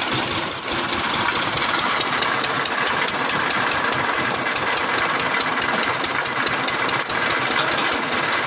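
Engine of a borewell water pump running steadily with a regular knocking beat.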